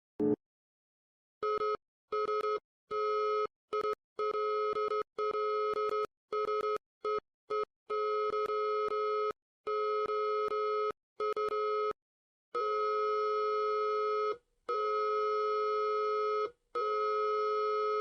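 Morse code keyed as a steady electronic beep tone: a run of short dots and longer dashes, ending with three long dashes.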